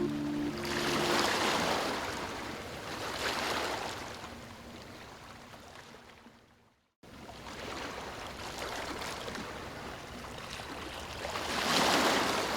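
Ocean waves washing in and drawing back in slow swells, each swell rising and fading over a couple of seconds. About seven seconds in, the sound fades to complete silence for a moment and then cuts straight back in.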